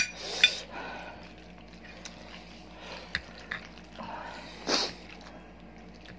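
Eating sounds of instant noodles being slurped and chewed, with wet mouth noises. A couple of sharp clicks of forks against plates at the start, a few more soft clicks later, and a short slurp just before the end.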